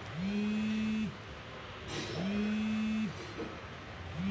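Small electric motor, the fuel pump in the tank, switching on and off about every two seconds. Each run lasts about a second, spinning up and winding down in pitch. It starts three times, the last near the end.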